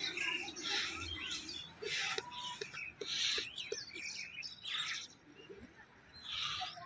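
Birds chirping and calling, with bursts of quick high chirps coming about once a second and softer twitters between them.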